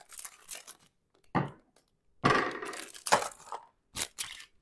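Clear plastic bag of small red plastic miniatures being snipped and pulled open: crinkling plastic, with a few louder rustles and the little figures clicking against each other.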